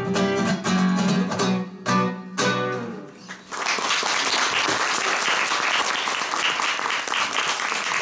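A few strummed closing chords on a nylon-string acoustic guitar, the last one ringing out; then, about three and a half seconds in, the audience breaks into applause.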